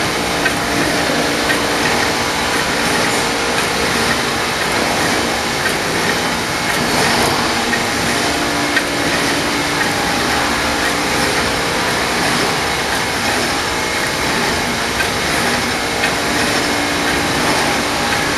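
TYM1050Y hot foil stamping press running, a steady, even mechanical noise with a faint hum and a few small clicks.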